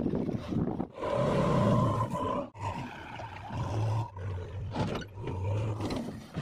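Diesel engines of a JCB 3DX backhoe loader and tractors running and revving, in short clips that cut off abruptly every second or so.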